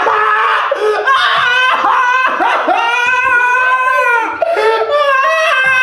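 A woman screaming and crying in panic: high-pitched, drawn-out wails that rise and fall, one after another.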